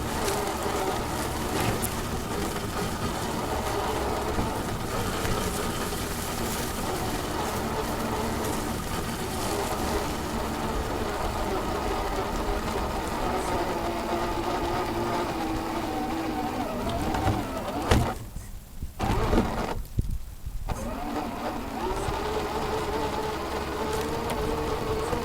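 Electric motor and drivetrain of an Axial SCX10 II RC crawler truck whining as it drives, its pitch rising and falling with the throttle. The onboard camera audio is glitchy: about three quarters of the way through the sound twice cuts out briefly amid sharp clicks.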